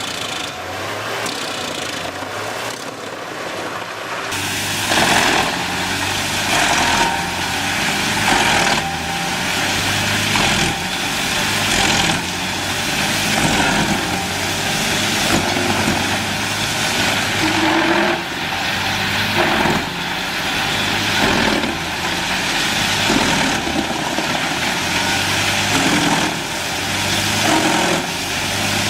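Large wood chipper running, its engine under load, with surges of noise every second or two; it gets louder about four seconds in.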